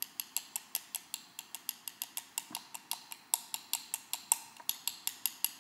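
Teaspoon measure tapping quickly and repeatedly against a container, about five or six light clicks a second, knocking ground ginger off the spoon; a few taps are louder.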